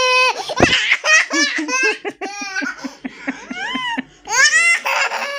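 A toddler laughing out loud: a high-pitched peal, then a run of quick giggle bursts, and a louder squealing laugh near the end.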